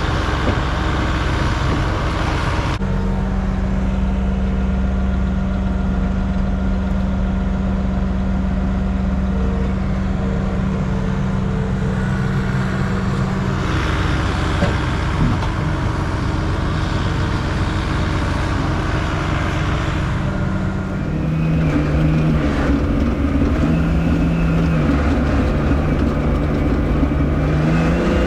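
A vehicle engine running steadily, its sound changing abruptly about three, fourteen and twenty-one seconds in; over the last several seconds its pitch rises and falls a little.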